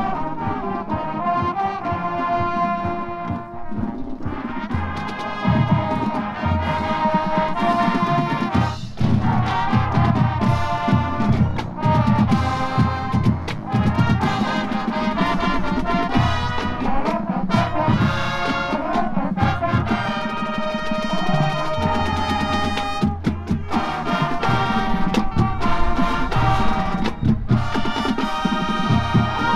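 Marching band playing: brass sections holding full, sustained chords and melodic lines over bass drums and percussion.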